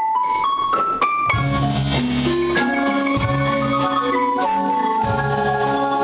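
Guatemalan marimba played by several players at once, with upright bass and drum kit. For about the first second a lone marimba melody sounds, then the full group comes in with bass and drums underneath.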